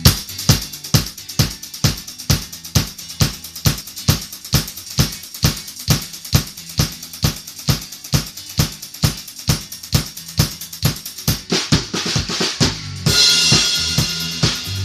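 Isolated rock drum part, with steady kick and snare hits in an even beat and hi-hat between. Near the end a cymbal crash rings on over the beat.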